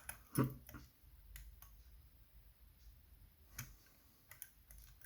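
Faint, irregular small clicks from picking tools working the levers inside a Chubb 3G107 seven-lever lock, one every second or so.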